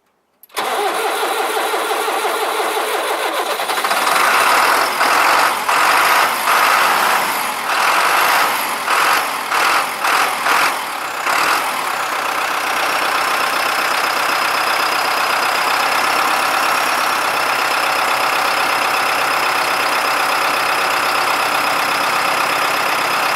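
A New Holland turbo-diesel tractor engine cold-starting: the starter cranks for about three seconds, then the engine catches and runs unevenly, surging and dipping for several seconds, before settling into a steady idle. A thin, high turbo whistle comes in about halfway through and holds with a slight waver.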